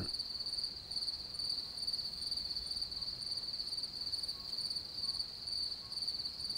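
Crickets trilling steadily in a high, continuous night chorus, with a fainter pulsing second trill above it about twice a second.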